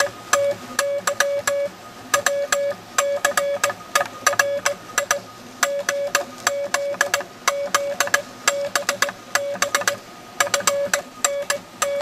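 Morse code from a vintage Instructograph's punched paper tape, sounded as a mid-pitched keyed beep through a ham keyer: short dits and longer dahs in letter groups with brief gaps between them. Each element has a sharp click at its start and end.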